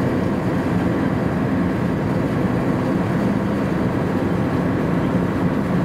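Steady low drone of a pusher-type cargo ship's diesel engine, heard across the water as it passes.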